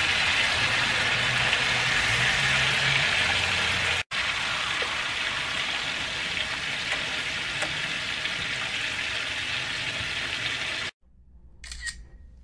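Redfish fillets sizzling as they fry in hot oil in a pan, a steady hissing sizzle. It breaks off for an instant about four seconds in and cuts off near the end.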